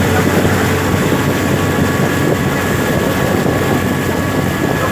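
Engine of an amphibious tour vehicle running steadily as it cruises through the water, a continuous drone with no change in pace.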